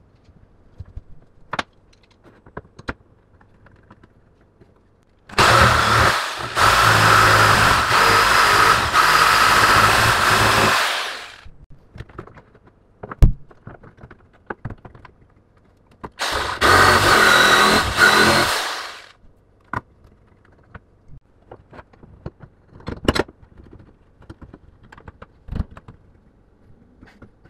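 Electric jigsaw cutting a wooden blank in two runs, the first about six seconds long and the second about three, each winding down as it stops. Between the runs come sharp clicks and knocks as a bar clamp is tightened and the wood is handled.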